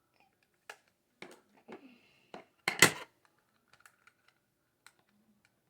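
Clicks, taps and rattles of plastic makeup packaging being handled and pried at while trying to open it, with a louder clatter about three seconds in.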